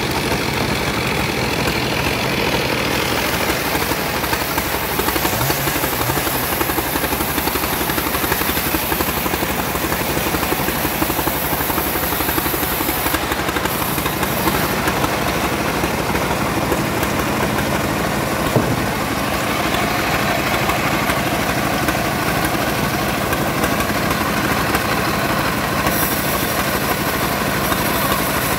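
Engine-driven homemade bandsaw running steadily while sawing sengon timber into rafter stock, a continuous motor drone with the blade's cutting noise; the sound thickens in the upper range about two-thirds of the way through.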